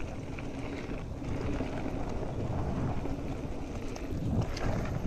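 Mountain bike rolling fast over a dry dirt trail: a steady rumble of tyres on loose dirt and gravel with wind on the camera microphone, and a few short rattles of the bike over bumps near the end.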